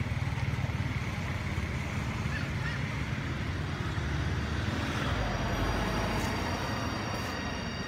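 Steady outdoor background rumble and hiss, with a slow swell midway and a few thin, steady high tones joining near the end.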